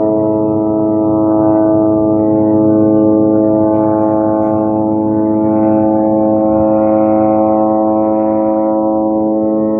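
One long, steady, low horn-like drone with many overtones, holding the same pitch throughout.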